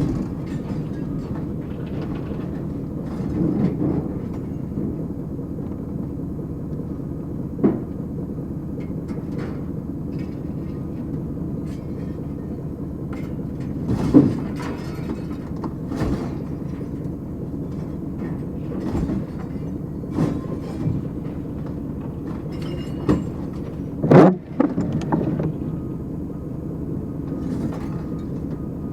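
Heavy machinery's engine running steadily, with several sharp metal clanks and knocks, the loudest about three-quarters of the way through.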